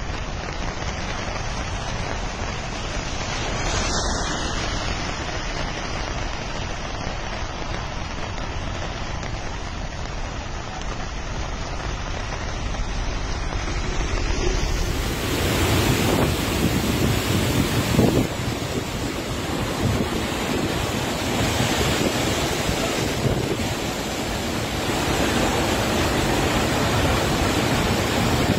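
Steady rushing noise of heavy rain and wind on the microphone; about halfway through it grows louder and fuller with the rush of a brown floodwater torrent pouring down a hillside.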